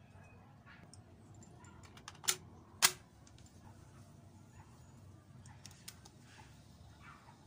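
Plastic clicks and taps of a compact cassette being handled and seated into the open tape compartment of a Sony TCM-57 cassette recorder, with two sharp clicks about half a second apart a little over two seconds in.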